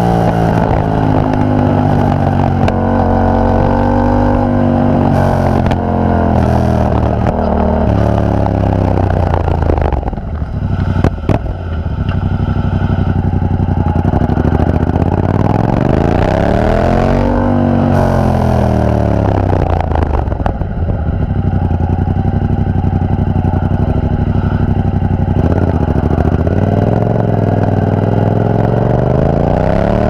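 Yamaha FZ-07's 689 cc parallel-twin engine running through an aftermarket carbon-sleeved exhaust while riding, its pitch rising and falling with throttle and gear changes. About ten seconds in it drops briefly with a couple of sharp clicks, then climbs and falls again around halfway and rises near the end.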